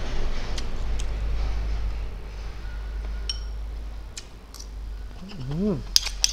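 Close-miked eating: chewing, with a few sharp clicks of a metal fork and spoon against a ceramic plate, the brightest just before the end. A short hummed 'mm' that rises and falls comes about five seconds in, over a steady low hum.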